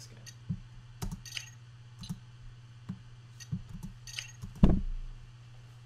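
Sci-fi computer-button sound effect made from metal pots and pans, played back from the editor: a run of irregular sharp clicks and metallic clinks, the loudest about four and a half seconds in, over a steady low hum.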